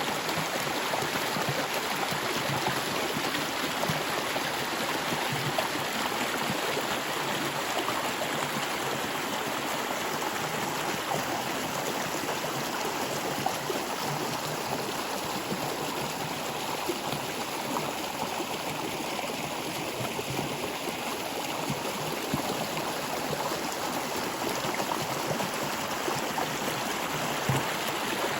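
A stream of water flowing steadily, an even rushing and gurgling with small swells.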